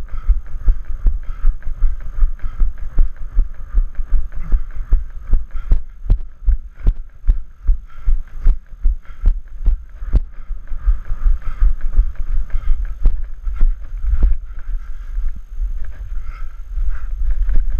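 A trail runner's footfalls on a forest dirt path, a steady run of thuds at about two to three steps a second, over a low rumble of wind and jostling on a body-worn camera's microphone.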